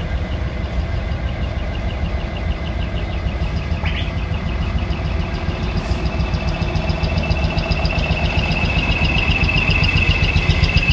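Heavy truck diesel engine running at low speed with a low, rhythmic rumble as the truck rolls slowly past, growing louder toward the end. A steady high whine sits above it.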